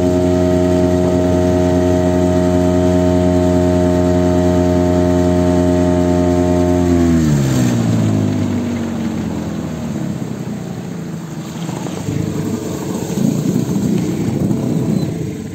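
Small Sea-Pro outboard motor on an inflatable boat running steadily at speed, then slowing about seven seconds in, its pitch falling away. After that, irregular water and hull noise as the boat comes in through the shallows to the bank.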